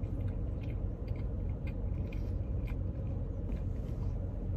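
A man chewing a mouthful of burger, with faint scattered clicks of the chewing, over a steady low rumble inside a car's cabin.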